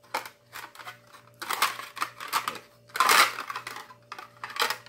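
A set of printed plates being handled and pulled apart, with scraping and rustling. The scraping is loudest about three seconds in, and a few sharp clicks come near the end.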